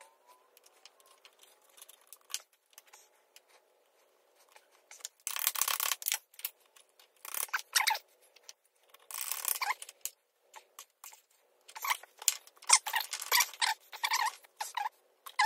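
Steel brake band linkage parts being handled inside a John Deere 450 dozer's brake compartment as they are hooked back up: a few light metal clicks at first, then several bursts of metallic scraping and rattling from about five seconds in.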